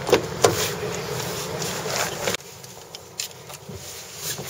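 Knocks and rustling from a camcorder being handled inside a car, with two sharp knocks near the start. The noise drops away suddenly a little past halfway, leaving a few faint ticks.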